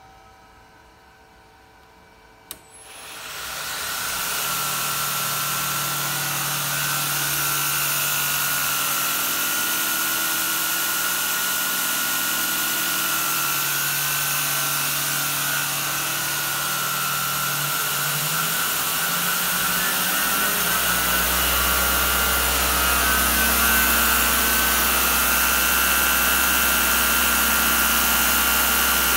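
Belt grinder fitted with a polishing attachment, switched on with a click about two and a half seconds in; its motor spins up quickly and then runs steadily, belt and polishing wheels whirring. A deeper hum joins about twenty seconds in.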